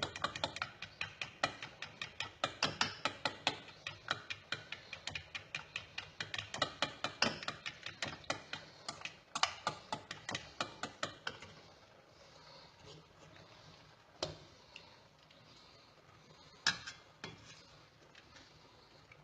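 Utensil beating an egg-and-lemon mixture in a bowl, clicking against the bowl at about four strokes a second, then stopping after about eleven seconds with a few single taps after. The mixture is being beaten as hot broth is added to temper the eggs so they don't scramble.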